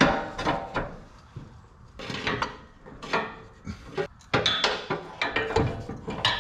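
Irregular metal clanks, knocks and rattles of parts and tools being handled while a transmission mount and exhaust hanger bracket are worked into place under a vehicle.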